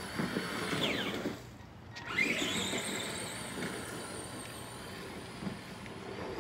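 RC car's motor whining as it is driven: the pitch falls as it slows about a second in, then rises sharply as it accelerates again at about two seconds, and keeps running steadily after that.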